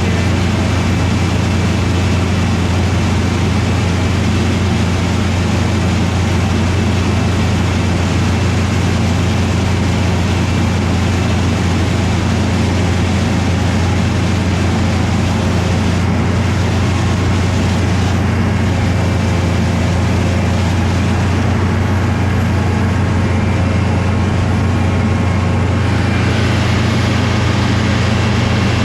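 Oxbo 8430 self-propelled ear corn picker running steadily: a constant low engine drone with a dense mechanical noise over it.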